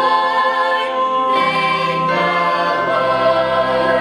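Chorus of voices singing long held chords, moving to a new chord about a second and a half in and again a little after two seconds.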